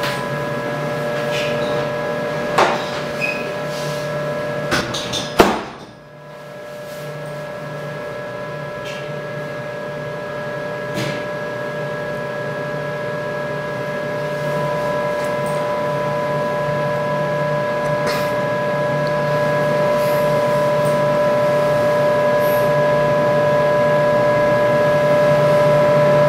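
CO2 laser system (COPRO III) running just after power-on, a steady hum with several high whining tones. A couple of clicks come early, and a sharp knock about five seconds in is the loudest sound. The hum then dips briefly and grows slowly louder.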